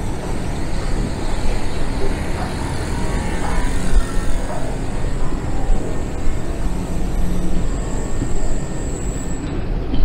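Steady rumble and hiss of an Underground station, with a train running through it, echoing in the concourse. A thin high whine grows louder near the end.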